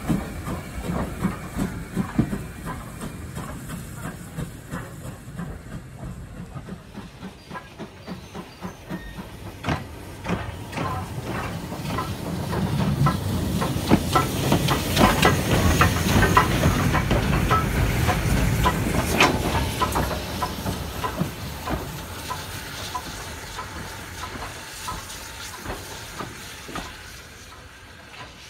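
BR Standard Class 2MT 2-6-0 steam locomotive running light at low speed, hissing steam and clicking and clanking as its wheels and motion work over the track. It is loudest about halfway through as it passes close alongside, then fades as it draws away.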